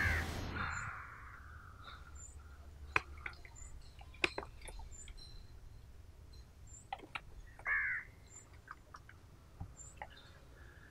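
Outdoor bird calls: a short arched call right at the start and another about eight seconds in, over faint high chirps repeating about once a second. Scattered light clicks and taps.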